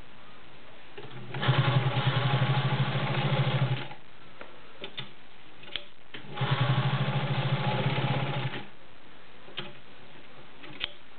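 Vintage Pfaff 130 sewing machine stitching through seven layers of thick denim in two runs of about two and a half seconds each, with a pause between them. A few light clicks fall in the quiet gaps.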